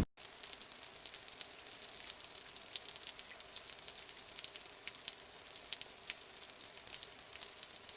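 Steady rain falling, a continuous hiss with many individual drops ticking through it.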